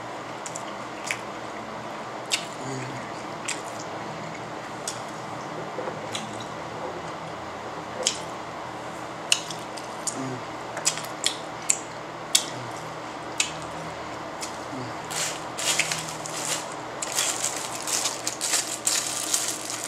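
Eating a burrito: chewing and mouth sounds, with scattered sharp clicks of a fork against a foam takeout container. The clicking and rustling grow busier over the last few seconds.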